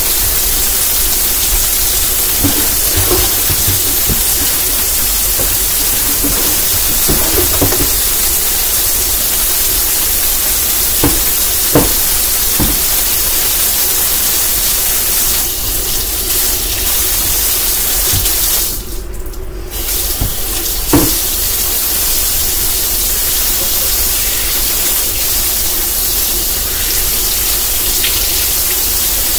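Kitchen tap running steadily into a sink while dishes are washed, with a few sharp clinks of dishes. The water briefly drops away a little over halfway through, then comes back.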